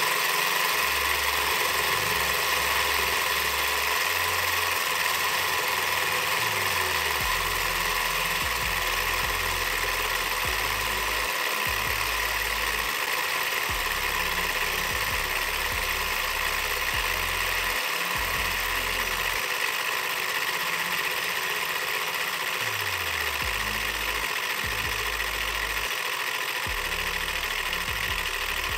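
Four-cylinder V-type model Stirling engine running steadily, its pistons and crank making a fast, even mechanical whirr.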